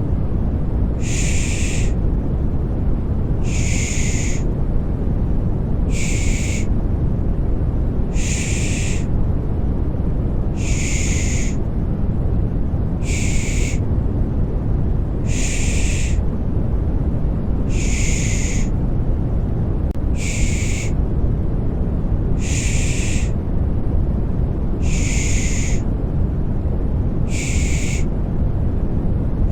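Rhythmic baby-soothing shushing ('pış pış'): a hissing 'shh' repeats about every two seconds over a steady, deep white-noise rumble.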